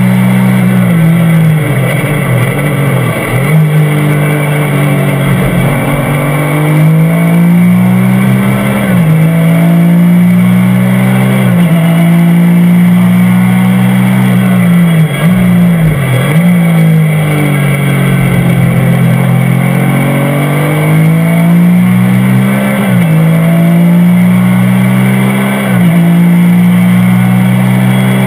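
Porsche 996 GT3 Cup's naturally aspirated flat-six, heard from inside the cockpit at racing speed. The engine note climbs steadily through each gear and drops sharply at every upshift, with quick dips and blips where the driver brakes and changes down.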